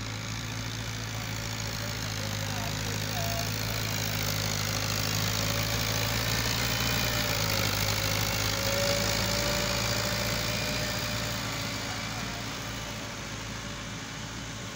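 Farm tractor's diesel engine running steadily under load while dragging a land leveller over loose soil. It grows louder as the tractor passes close about halfway through, then fades as it pulls away.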